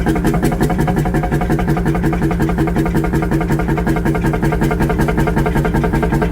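An engine running steadily at a constant speed, with a fast, even pulse in its note.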